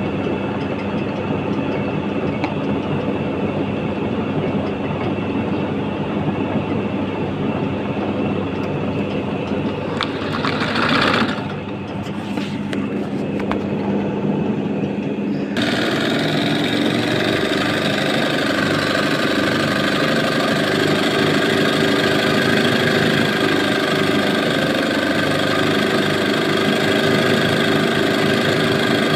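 Sewing machine running steadily while stitching free-motion embroidery on fabric held in a hoop. There is a brief louder surge about eleven seconds in, and about fifteen seconds in the sound changes abruptly to a brighter, higher running tone.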